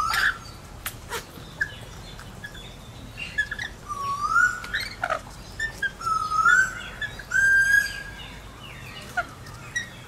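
Rainbow lorikeets giving a handful of short rising chirps, three of them close together in the second half, with a few faint clicks in between.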